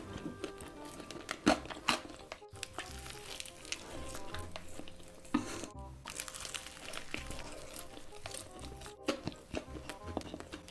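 Close-miked eating of breaded fried chicken: a few loud, crisp crunches as it is bitten, with chewing in between. Soft background music runs underneath.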